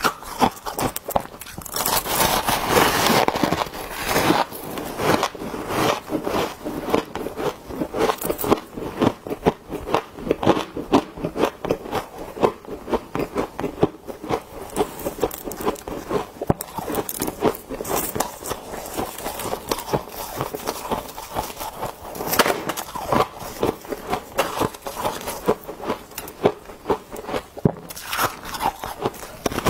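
Refrozen freezer frost being bitten and chewed close to the microphone: a dense, continuous run of crisp crunches and crackles, with a few louder bites.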